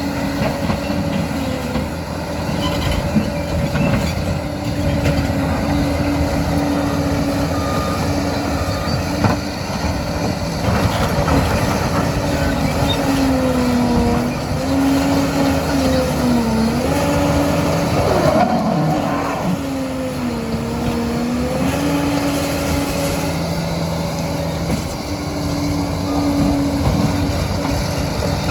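Liebherr PR 746 crawler dozer's diesel engine running steadily. Its pitch sags twice in the middle, as the engine takes load, with a brief squeal between.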